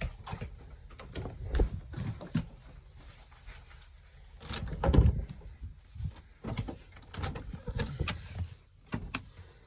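Scattered knocks, clicks and rustling of someone moving about and handling things, with a louder thump about five seconds in, over a low rumble.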